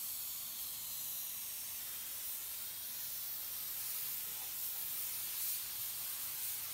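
Cheap Harbor Freight gravity-feed paint spray gun spraying paint onto a car door, a steady high air hiss as the trigger is held.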